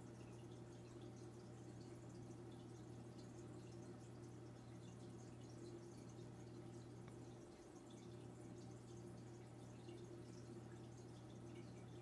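Faint sound of a running aquarium: a steady low hum with light dripping and trickling water, the kind made by a tank's filter returning water.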